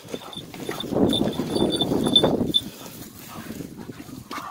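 Two leashed English pointers panting and snuffling as they pull ahead, with footsteps scuffing over loose stones. It is loudest from about one to two and a half seconds in.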